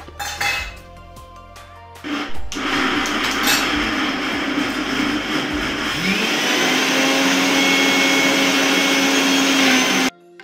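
Electric mixer-grinder grinding soaked dal into batter: a few clicks as the jar is set in place, then the motor starts about two seconds in and runs steadily, its whine rising in pitch partway through as it speeds up, and cuts off suddenly near the end.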